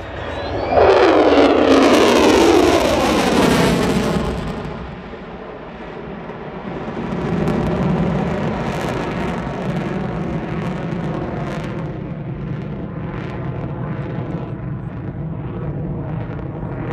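Fighter jet passing in afterburner: a loud jet roar breaks in about a second in with a falling sweep in pitch as it goes by, eases off around five seconds, then swells again and settles into a steady roar as the jet climbs away.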